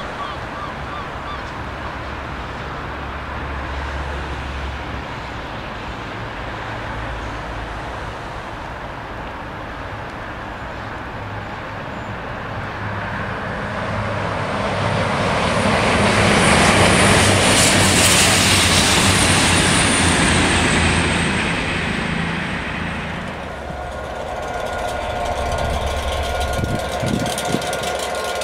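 Class 67 diesel locomotives' two-stroke V12 engines running with a steady low drone. About halfway through, a CrossCountry Voyager diesel multiple unit passes. Its noise swells to the loudest point with a high whine and then fades, leaving the locomotive drone again near the end.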